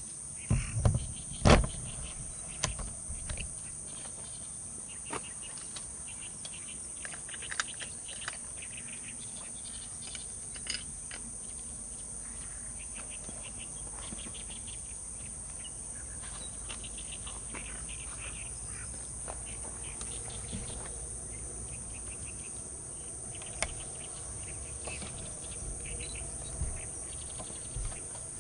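A steady high-pitched insect chorus, with faint bird chirps now and then. A few low thumps and a sharp knock about a second in are the loudest sounds.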